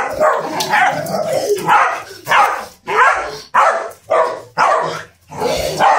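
Italian greyhound barking: a quick run of short barks, about two a second.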